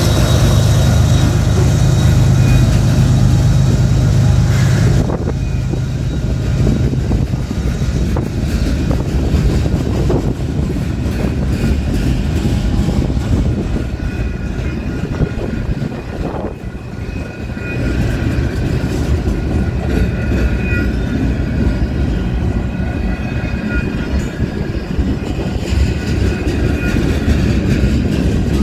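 A freight train's boxcars roll steadily past at close range, with wheel-on-rail rumble and clatter. For the first five seconds the lead locomotive's GE GEVO diesel is still heard working hard in notch 8, then it drops away as the cars follow.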